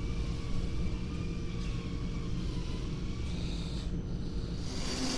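Steady hum of machine-shop machinery running, with faint wavering whine tones. Near the end it changes to a louder, hissier sound with a steady tone: a metal lathe running, turning a steel gearbox shaft.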